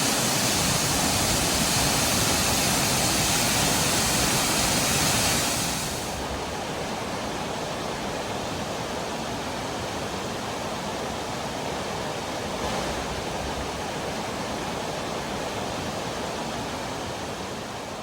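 Waterfall on the Little Mashel River, a steady rush of falling water. About six seconds in it drops suddenly to a softer, duller rush of water.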